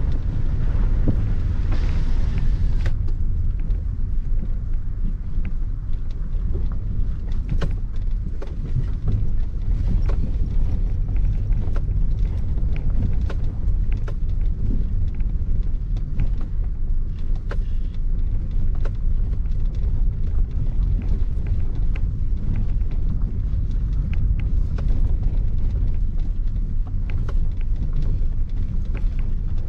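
Maruti Suzuki Ignis heard from inside the cabin, driving in second gear over a rough, unpaved road: a steady low rumble of engine, tyres and suspension, broken by frequent knocks and rattles as the car jolts over stones and ruts.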